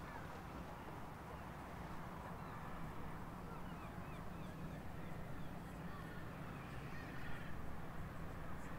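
Outdoor seafront ambience: a steady low hum with distant voices, and a quick series of short bird calls in the middle.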